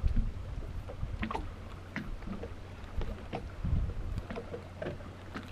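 Low rumble of wind on the microphone over a faint steady hum, with scattered light clicks and taps a few times a second apart.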